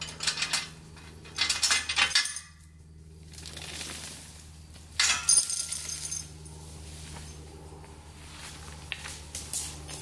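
Kubota B2601's three-cylinder diesel engine idling steadily, with four bursts of metallic clinking and rustling in the first six seconds as the tow strap and its hardware are handled at the grapple.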